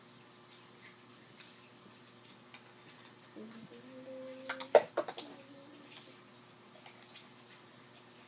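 Quiet handling of slime-making containers and utensils: scattered light clicks and ticks. About three and a half seconds in comes a short hum, then a quick run of three sharp knocks, the loudest sounds.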